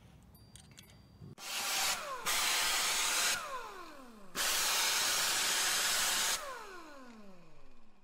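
A motor-driven tool with a loud rushing sound runs in two bursts of about two seconds each. After each burst its whine falls away as the motor spins down.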